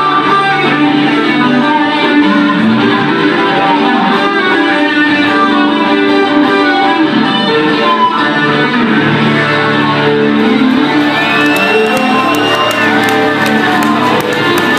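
Two acoustic guitars playing an instrumental duet live, a busy stream of picked notes over chords.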